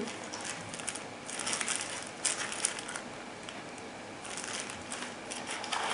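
Faint rustling and crinkling of packaging being handled as the contents of a box are taken out, with a few small ticks and clicks in between.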